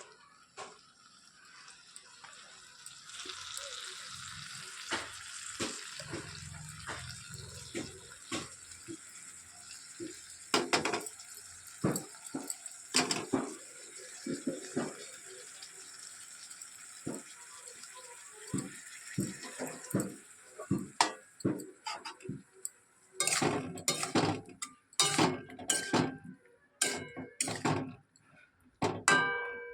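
Metal utensils and cookware clinking and knocking in a kitchen over a steady hiss, with denser clattering in the last several seconds.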